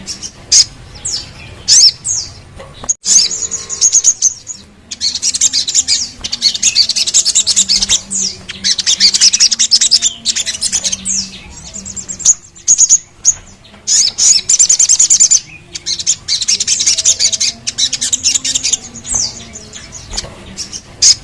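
Sogon sunbird singing. Sharp high descending notes alternate with long, rapid, high-pitched trills, each trill lasting a few seconds.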